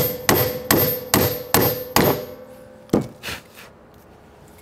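Hammer blows on a steel bearing driver, driving a new tapered roller bearing onto a Nissan M226 differential carrier. Six quick metallic strikes come about two and a half a second, each leaving a ringing tone, then a pause and two more blows about three seconds in.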